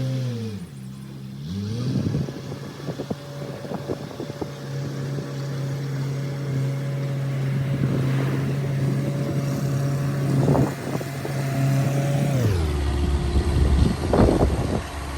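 Case 580C backhoe's engine running. Its speed dips and recovers in the first couple of seconds, holds steady, then drops to a lower speed near the end. Scattered knocks and clatter come from the machine.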